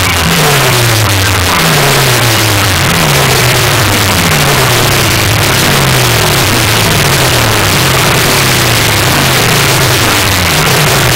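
Stacked walls of horn loudspeakers blasting very loud, heavily distorted electronic bass, with a falling bass sweep repeating about once a second over a harsh hiss.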